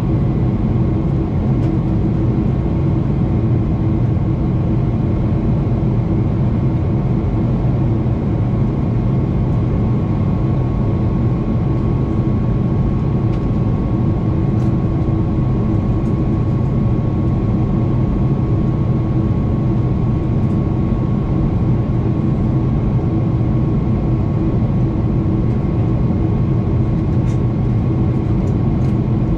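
Cabin noise of a Boeing 777-300ER in flight, heard from a window seat beside its GE90 turbofan engine: a steady roar of engine and rushing air with a few steady hums in it.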